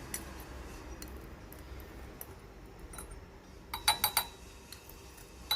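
A metal utensil clinking and scraping against a small glass jar as mashed garlic is put into it. Light scattered clinks give way to a quick run of sharper clinks about four seconds in.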